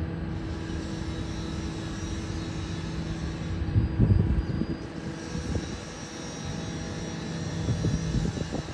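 Tram sounds: a steady electrical hum from a standing tram close by, over the low rumble of a second tram rolling slowly along the track. There are two louder low rumbles, one about four seconds in and one near the end.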